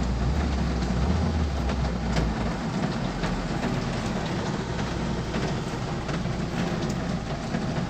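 Hyundai i20 petrol engine revved with the AC compressor engaged, heard from inside the cabin: the rumble runs higher for the first couple of seconds, then settles back. No bearing whine is heard now that the alternator and compressor bearings have been replaced. A steady hiss of rain lies underneath.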